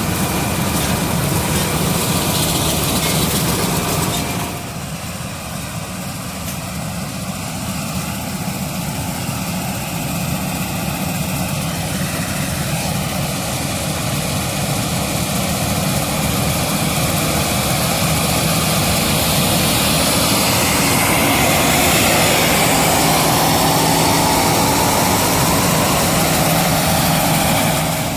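Combine harvester running, a steady heavy engine drone with mechanical noise. It eases off slightly about four seconds in and grows louder over the last third.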